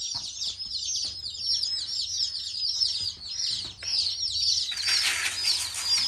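A brood of baby chicks peeping nonstop, many short, high, falling chirps overlapping, with light pecks and scratches on newspaper. About five seconds in, a brief rustling hiss as chick feed is poured in among them.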